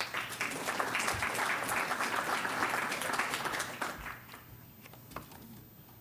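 Audience clapping, building quickly, then dying away after about four seconds.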